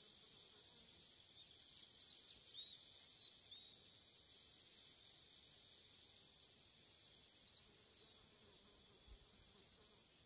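Steady, high-pitched insect chorus, with a few short high bird chirps scattered through it and a single sharp click about three and a half seconds in.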